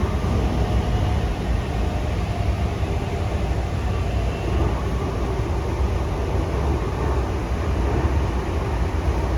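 Toei Mita Line 6500 series train running, heard from inside the car: a steady low rumble of wheels and running gear with a faint tonal whine above it.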